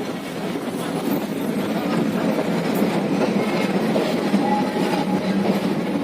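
A Kolkata tram running along its street track, with a steady rolling noise of steel wheels on the rails.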